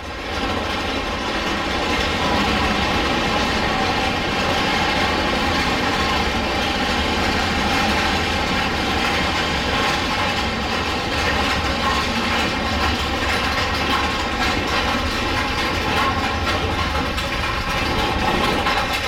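Big Thunder Mountain Railroad's mine-train coaster cars running along the track, heard from a seat on board: a steady, loud mechanical clatter and rumble with a constant hum in it, with no break or change.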